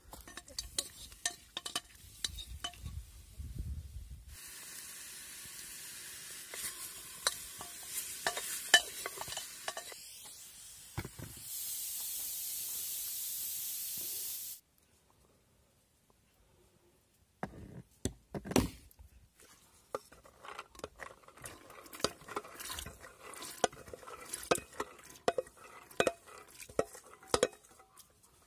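A wooden spoon stirring and scraping in a metal cooking pot of chickpeas and meat, with many small clicks and knocks. In the middle a steady hiss with crackles runs for about ten seconds, louder for its last three, then cuts off suddenly.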